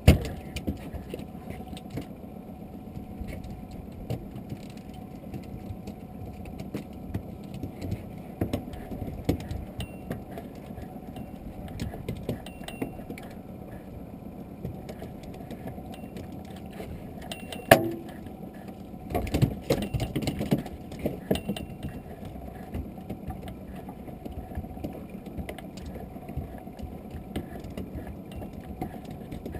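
Small open boat drifting at sea: a steady low rumble of wind and water against the hull, with scattered small knocks and rattles in the boat. A sharp knock comes a little past halfway, followed by a few seconds of louder rattling and handling noise.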